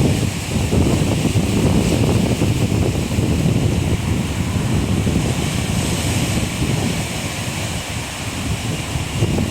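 Sea surf washing ashore, with wind buffeting the microphone: a dense, steady rumble that eases slightly about seven seconds in and builds again near the end.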